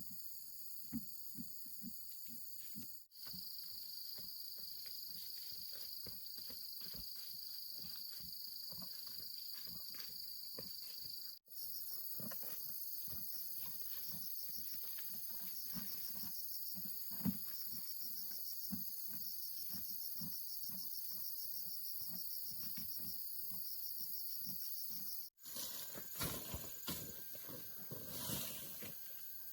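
Steady, shrill chorus of insects, with a pulsing trill in the middle stretch. Soft rustles and light knocks sound underneath, and they get busier near the end. The chorus drops out briefly three times.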